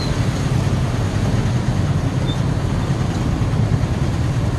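Steady low rumble of street traffic, motor engines running nearby.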